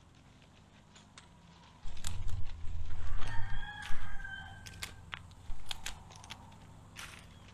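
A rooster crows once, a call of about a second near the middle, over a low rumble and scattered sharp crackles and snaps of dry leaves and twigs.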